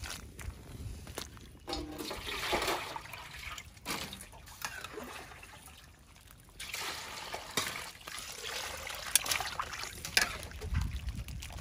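Water sloshing and trickling as a metal ladle stirs cauliflower florets in a pot of water, in uneven spells, with a few sharp clinks of the ladle against the metal pot.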